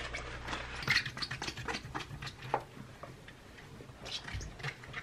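A sponge in a rubber-gloved hand scrubbing a stainless-steel kitchen sink and wiping the counter and wall beside it: irregular short rubbing strokes and light clicks and knocks.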